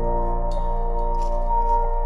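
Ambient background music: steady sustained chords with a faint high shimmer.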